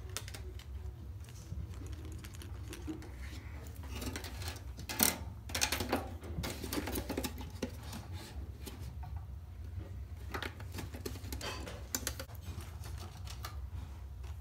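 Irregular small clicks and taps of hands handling wires and parts on a homemade popsicle-stick animatronic, with the sharpest click about five seconds in, over a steady low hum.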